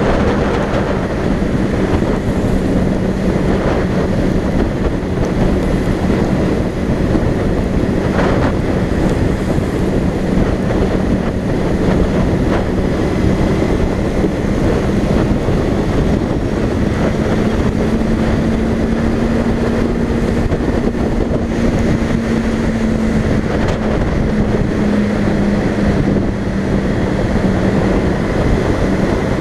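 Motorcycle engine running at a steady cruise under heavy wind noise on the microphone, its note rising slightly for a few seconds about two-thirds of the way through and then settling back.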